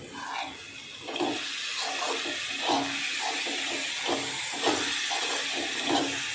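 A spoon stirring thick, cooked-down grated-carrot halwa (gajar halwa) in a metal kadhai, scraping the pan in repeated strokes about two or three a second from about a second in. A steady hiss from the hot pan runs underneath. The milk has fully reduced, so the mass is stirred dry rather than bubbling.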